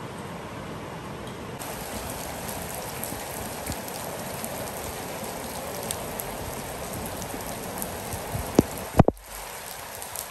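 Steady rain falling and splashing on wet outdoor paving tiles, with a couple of sharp taps near the end.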